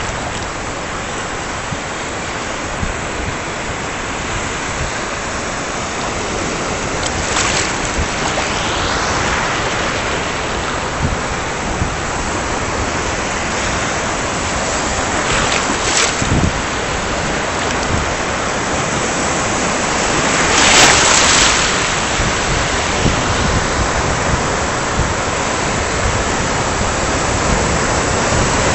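Sea surf: waves breaking and washing in a steady rush, with louder surges of breaking water several times, the strongest about twenty-one seconds in.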